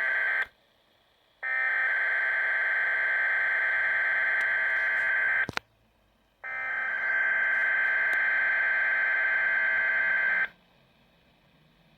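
Emergency alert data header received on a weather radio: harsh buzzing digital tone bursts. One burst cuts off half a second in, then two more of about four seconds each follow with a short silence between.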